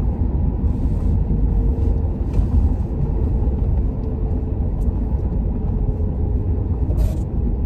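Steady low rumble of a truck driving at about 40 mph, heard from inside the cabin: engine and road noise.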